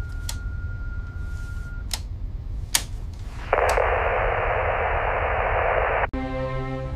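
Radio receiver sound effects: a steady high tone for the first couple of seconds, a few sharp clicks, then a loud burst of radio static from about three and a half seconds in that cuts off suddenly about six seconds in, over a low rumble. Music begins right after the cutoff.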